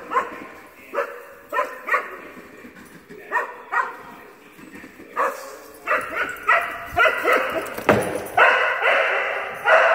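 Dogs barking repeatedly: short, sharp barks spaced about half a second to a second apart at first, coming closer together from about halfway, and nearly unbroken over the last two seconds.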